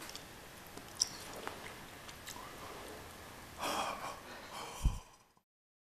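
A man breathing out audibly close to the microphone in two short huffs, the second ending in a low knock of handling, then the sound cuts off abruptly.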